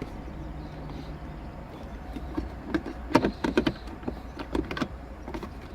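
Plastic clicks and knocks as a Vauxhall Zafira B's dashboard trim housing is pushed and worked back into place, several separate clicks from about two seconds in, over a steady low hum.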